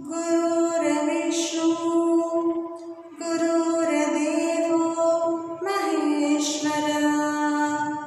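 A woman's solo voice chanting a prayer in long, held notes, phrase by phrase, with short breaks between phrases and the pitch dropping for the last phrase.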